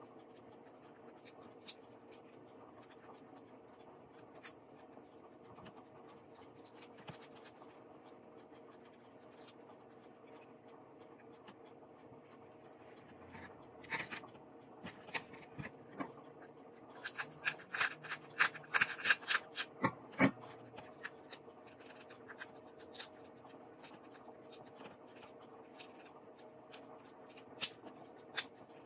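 Raw lobster tail shell being handled and cracked apart by hand: scattered crackles and sharp clicks, with a dense run of clicks a little past the middle, over a faint steady hum.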